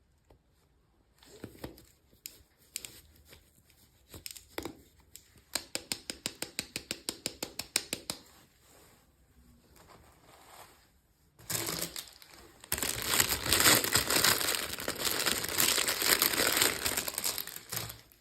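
Plastic packaging wrapper being handled and torn open. Scattered rustles give way to a quick, even run of ticks for a couple of seconds, then about six seconds of loud, continuous crinkling near the end.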